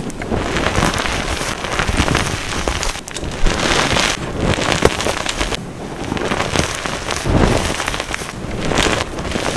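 Hands squeezing and crumbling plain BSN gym chalk topped with Holi color powder: a dense, crisp crunching and crackling that swells with each squeeze, about once a second.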